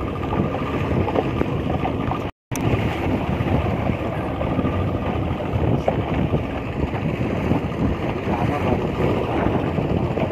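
Wind buffeting the microphone over the running outboard motor of a small boat towing this one, with water washing past the hull. The sound cuts out completely for a moment about two seconds in.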